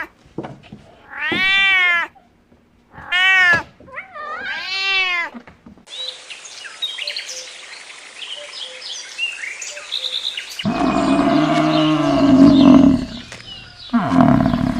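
Domestic cat meowing three times, each meow rising then falling in pitch. This is followed by a few seconds of many short high chirps, then a loud deep call in the last few seconds that starts again just before the end.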